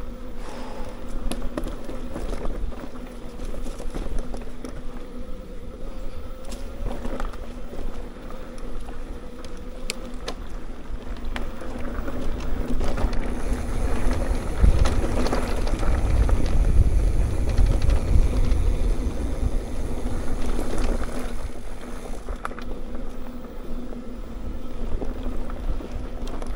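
Mountain bike rolling along a dirt singletrack trail: tyre noise with scattered clicks and rattles over bumps, and wind rushing over the microphone, heaviest about halfway through.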